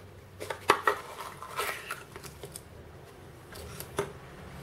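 Hands handling unboxed vape parts and packaging: a few light clicks and knocks of small hard pieces in the first second, a short crinkle of packaging, then a single sharp click about four seconds in.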